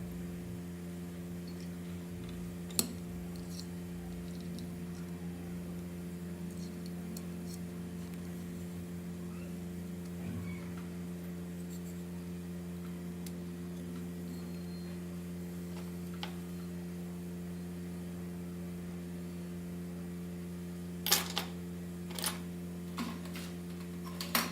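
Hot air rework station's blower running with a steady hum, with a few sharp clicks near the end.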